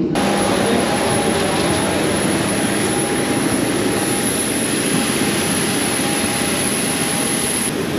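Jet airliner engines running, a loud, steady rushing roar with faint steady tones in it.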